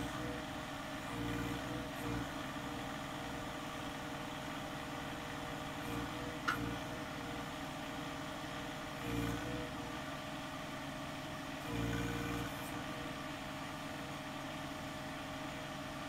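John Deere 1025R compact tractor's three-cylinder diesel engine running steadily while the backhoe is worked, its sound swelling briefly several times as the hydraulics take load. A single sharp click about six and a half seconds in.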